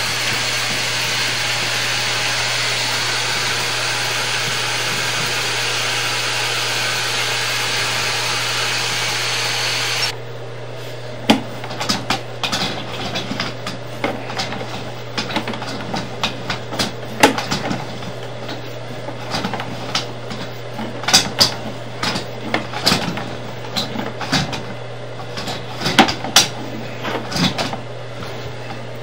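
Sewer inspection camera's push cable being fed down a sewer line: irregular clicks and knocks as the cable and camera head advance, over a steady low hum. A loud steady hiss covers the first ten seconds or so, then cuts off suddenly.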